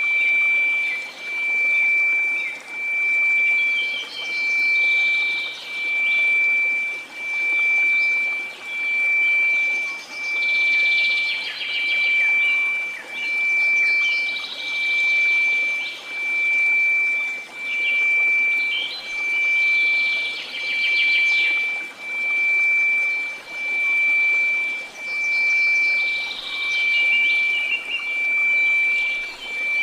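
A steady 2334 Hz sine tone swelling and fading about every one and a half seconds over a soft hiss of white noise. Bird chirps come and go above it at several points.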